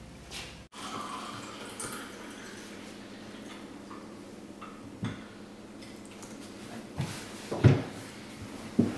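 Tea being poured from a ceramic teapot into cups, then a few knocks of crockery on the table as the pot and cups are set down, the loudest a little before the end.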